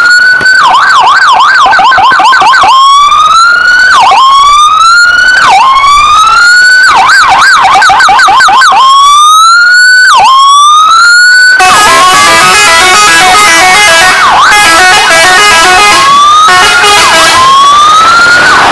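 A siren wails in repeated rising sweeps broken by bursts of fast up-and-down yelping, very loud. About two-thirds of the way in, a bus's multi-tone telolet horn joins, playing quick stepped notes over the continuing siren sweeps.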